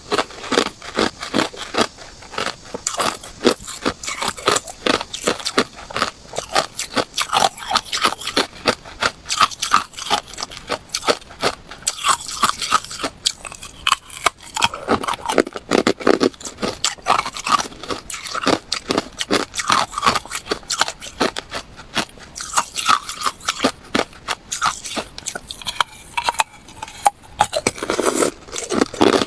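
Close-up crunching of someone biting and chewing hard ice, a dense, irregular run of sharp cracks and crunches that goes on without a break.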